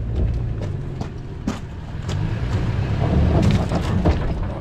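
Toyota 4Runner's V6 engine pulling under load as the truck crawls up a rocky dirt climb in four-wheel drive, swelling about three seconds in. Scattered sharp knocks and clatter come from rocks and dirt under the tyres.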